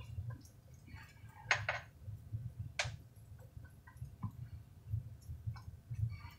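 Faint scrapes and clicks of a plastic serving spoon working food in a pressure cooker's pot, with the clearest strokes about a second and a half in and just before three seconds.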